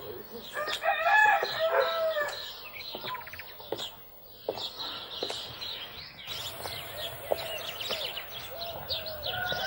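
Farmyard poultry: a rooster crowing about a second in and again near the end, with shorter clucking calls in between.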